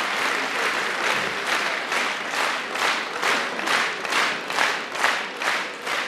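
Large audience applauding, the scattered clapping falling into rhythmic clapping in unison at about two and a half claps a second.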